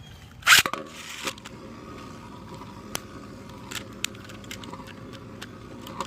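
Two 3D-printed Beyblade tops launched into the stadium with a loud ripcord zip about half a second in, then spinning with a steady faint whir and a few sharp clicks as they strike each other or the stadium wall.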